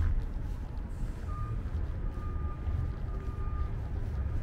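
Low, steady street-traffic rumble with three electronic beeps at one steady pitch, a little under a second apart, near the middle.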